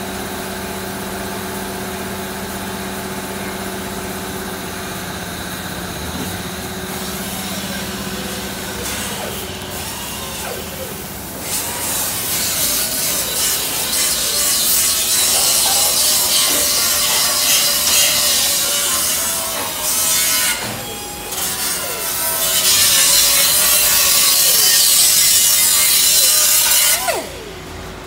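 Hand-held electric grinder with a wire brush scouring rust off a steel truck chassis, its motor running with a steady hum. A little under halfway through it grows louder and harsher, and its pitch wavers as the brush bears on the metal.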